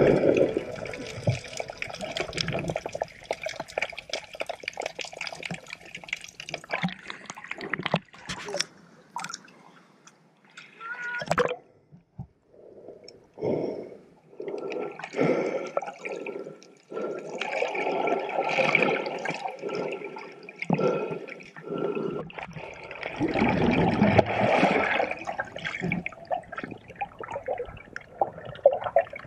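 Water sloshing and bubbling heard underwater as a person swims, in irregular surges. Nearly quiet about ten to thirteen seconds in, busiest in the second half.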